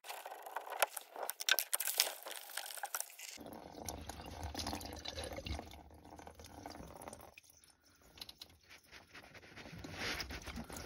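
Water draining from a disconnected shower-pump flexible hose, dripping and trickling into a plastic drip tray.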